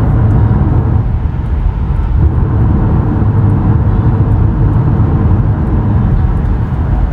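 Steady low rumble of road and engine noise inside the cabin of an Acura car cruising at highway speed.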